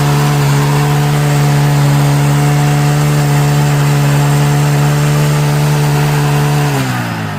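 TVS Apache motorcycle engine held at steady high revs during a rear-tyre burnout, a constant engine note over the rushing noise of the spinning tyre. Near the end the revs fall away.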